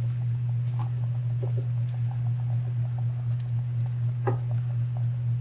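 Pot of bulalo simmering on a stove under a layer of cabbage and pechay: faint ticks and pops over a steady low hum, with one sharper click about four seconds in.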